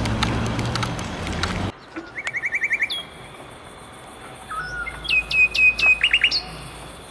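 A low rumble with faint ticks cuts off abruptly after about a second and a half, giving way to songbirds singing: a quick run of about six repeated chirps, then a series of loud, downward-sliding whistled notes about five seconds in.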